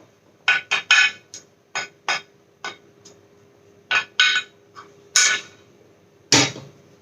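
A cooking utensil knocking and clinking against a wok in irregular, uneven strokes as boiled potato slices are tipped in and stirred through sautéed onions. The two loudest knocks fall near the end.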